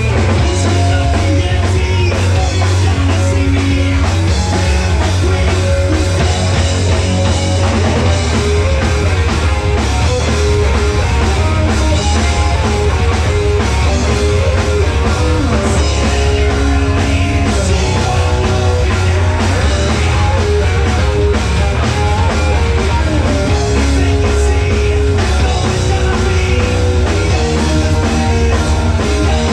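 Live rock band playing loud and without a break: drum kit and electric guitar over a heavy, booming bass.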